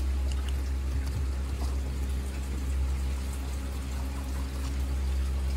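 Steady low hum with an even wash of noise like running water, and a few faint ticks.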